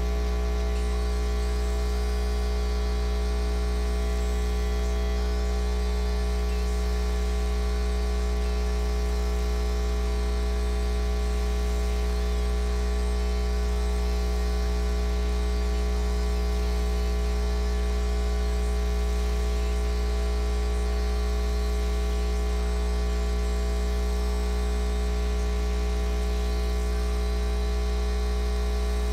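Loud, steady electrical mains hum and buzz: a deep hum with a long ladder of steady overtones, unchanging throughout, with nothing else heard.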